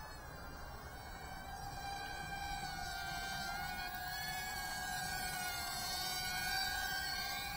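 Tiny 1S FPV quadcopter on 2-inch Gemfan 2008 props, its motors and props giving a thin, insect-like buzzing whine. The pitch holds fairly steady with slight wavers, and it grows louder as the quad comes in close.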